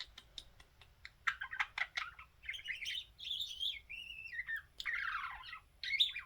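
Budgerigar warbling and chattering: a quick run of clicks and chirps, then wavering, pitch-sliding warbles, with a short scratchy burst about five seconds in.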